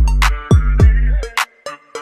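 Background music with a hip-hop style beat: deep bass drum hits that drop in pitch, sharp snare hits and a short repeating melody.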